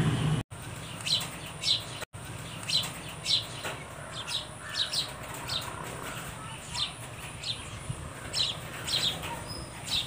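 Sparrows chirping: short, high chirps repeated about once or twice a second over a low background. A louder noise from the start cuts off abruptly about half a second in.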